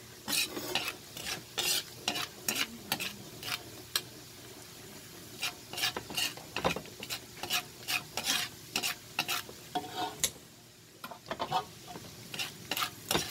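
Garlic sizzling in hot oil and butter in a pan, with a spatula scraping and knocking against the pan as it is stirred, one or two strikes a second that ease off for a moment near the end. This is the garlic being sautéed as the base of the sauce.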